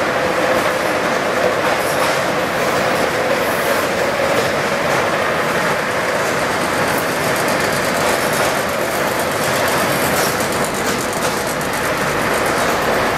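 Automated packaging line running: a steady mechanical clatter and hum from its conveyor and drive mechanism.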